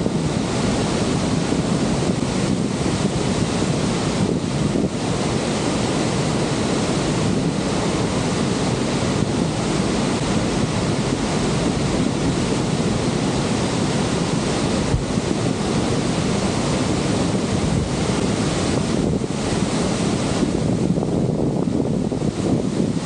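Steady roar of rushing water from Niagara's Horseshoe Falls, with wind buffeting the microphone.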